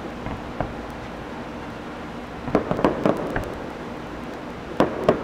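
Aerial fireworks shells bursting at a distance: a low rolling rumble, then a quick cluster of sharp bangs about two and a half seconds in and two more bangs near the end.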